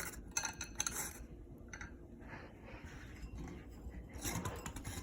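Harbor Breeze Builder's Best ceiling fan running steadily on medium speed, a faint low hum. Scattered light clicks and clinks sound over it in the first second and again about four seconds in.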